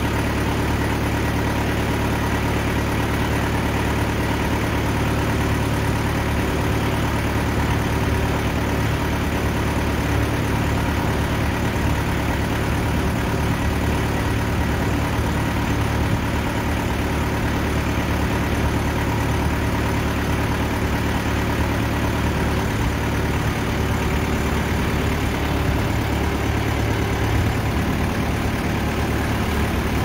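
TimberKing band sawmill's engine running steadily at an even pitch and level.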